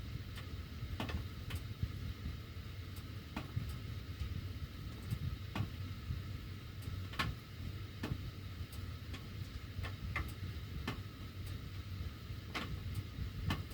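Sheet-metal heating ductwork ticking and clicking at irregular intervals while the heat is on, over a steady low rumble of air moving through the ducts.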